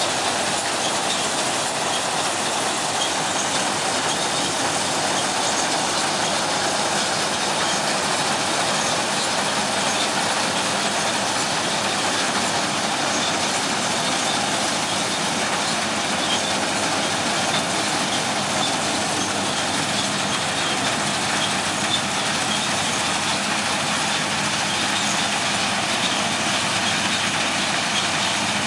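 NS 4x4 combine harvester running in the field, its engine and turning header reel and threshing machinery making a steady, continuous clatter.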